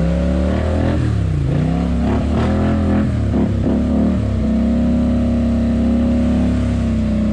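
Polaris ATV engine running under throttle, its pitch rising and falling over the first few seconds, then holding a steady speed before dropping off near the end.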